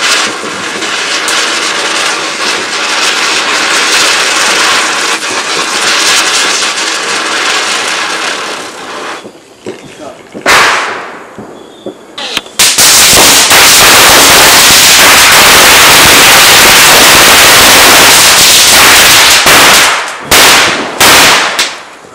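Firecrackers going off. A ground firecracker fizzes and crackles for several seconds and a single loud bang follows. Then a long, dense, rapid string of crackling bursts runs for about seven seconds and ends in a few separate loud bangs.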